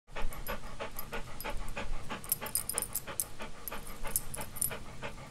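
A dog panting quickly, about four breaths a second.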